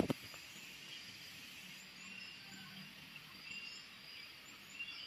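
Outdoor orchard ambience: insects chirping, with short high chirps repeating every second or so over a faint steady hiss. A brief knock right at the start.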